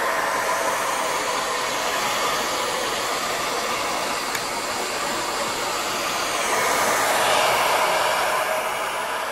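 Handheld hair dryer running steadily while blowing onto a plush teddy bear's fur: a rush of air with a faint whine beneath it, a little louder about seven seconds in.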